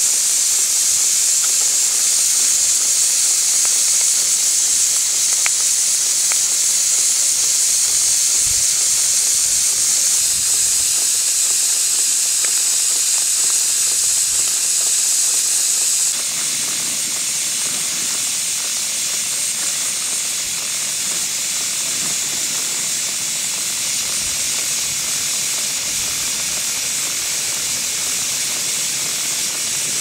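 Steady hiss of steam from a running scale Fowler Super BA steam ploughing engine. The hiss drops a little in level about halfway through.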